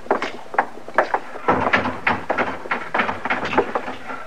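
Radio-drama sound effect of boot footsteps walking across a wooden floor, a steady run of knocks, with a low background murmur coming up about one and a half seconds in.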